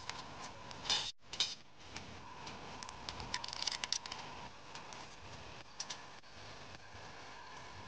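Scattered light clicks and taps of small hard objects being handled, with a couple of brief clattery clusters, over a faint steady hum.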